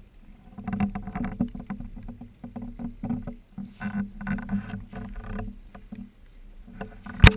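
Handling noise from a GoPro in its housing on a pole as the pole is moved about: irregular rubbing and knocking, with one sharp knock near the end.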